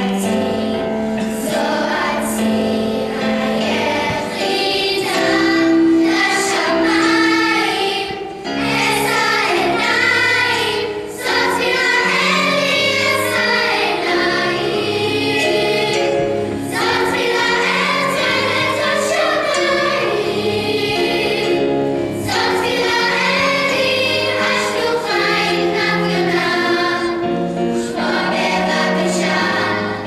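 Children's choir singing, accompanied on an electronic keyboard.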